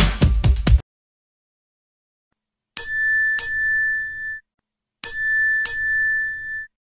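A bell-like chime sound effect: two quick pairs of bright "ding" strikes, each pair ringing out for about a second and a half before stopping. Electronic dance music cuts off abruptly in the first second.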